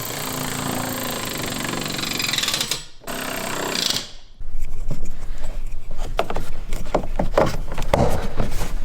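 BMW X6M door window motor running for about three seconds, stopping, then running again for about a second as the glass winds up. After that come a series of light clicks and knocks.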